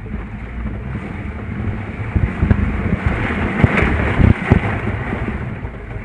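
Jeep driving slowly over a rough, muddy trail, heard from inside the cab: a steady low rumble of engine and tyres, with several bumps and knocks from the body jolting between about two and four and a half seconds in.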